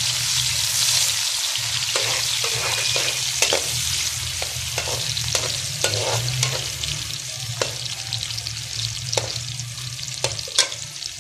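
Sliced onions sizzling in hot oil in a metal pot, stirred with a metal slotted spoon that knocks and scrapes against the pot every second or so. The sizzle is loudest at first and eases off gradually.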